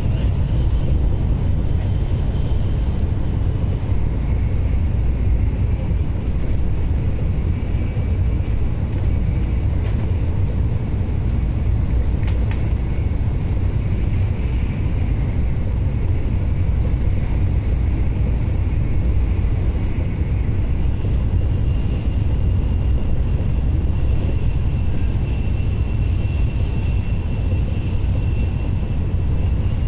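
Tokaido Shinkansen passenger car at speed: steady low rumble of the running train heard inside the cabin, with a faint high whine on top.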